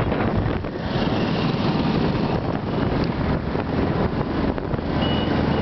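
Wind buffeting the microphone of a moving motorbike: a loud, uneven rush with road and vehicle noise beneath. A faint high tone sounds briefly about a second in and again near the end.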